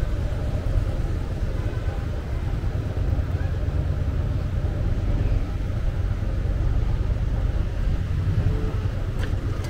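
City street ambience: a steady low rumble with faint voices mixed in, and a short click near the end.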